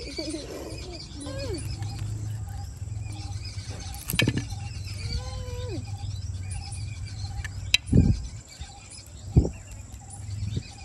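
Crisp tandoor-baked dough crust cracking as hands tear it open, a few sharp crackles over a steady low rumble, the loudest about eight and nine seconds in.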